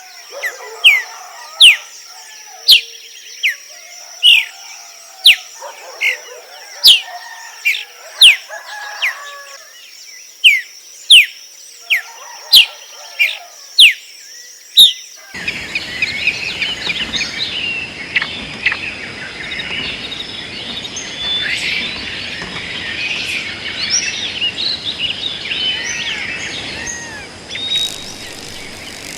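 A bird repeats a short, sharp, rising call a little over once a second, over a steady high-pitched whine and softer lower chatter. About halfway through, the recording cuts to a dense chorus of many birds chirping over a steady hiss.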